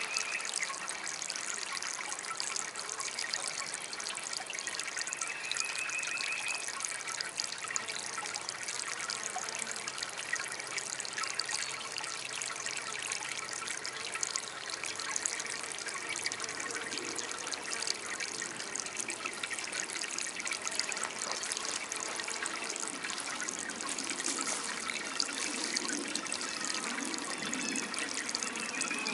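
Small homemade water fountain trickling and splashing steadily.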